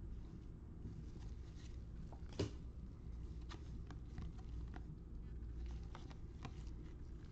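Trading cards handled and shuffled in gloved hands: scattered faint clicks and taps of card edges, with one sharper tap about two and a half seconds in, over a low steady hum.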